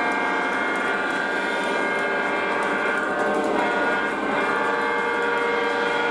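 O gauge Conrail diesel locomotives running, their onboard sound system playing a steady diesel engine sound over the rumble of wheels on three-rail track. The engine sound shifts in pitch a little past halfway through.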